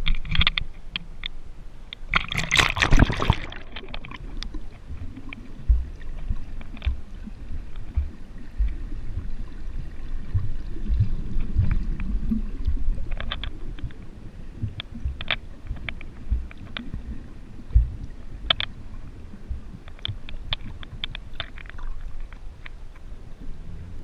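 Action camera splashing as it plunges under the water about two seconds in, then the muffled underwater sound heard through its waterproof housing: a low rumble with scattered short sharp clicks.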